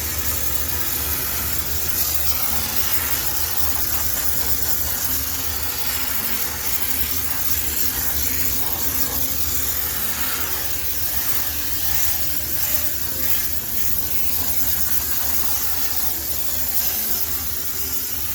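High-pressure steam cleaner hissing steadily as it sprays steam to sterilise a laundromat washing machine, over a low machine hum.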